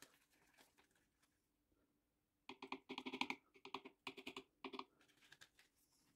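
Faint quick run of light clicking taps, about a dozen in two seconds, starting about halfway in: a small packet of green pigment flakes being tapped and shaken over a plastic mixing cup of epoxy resin.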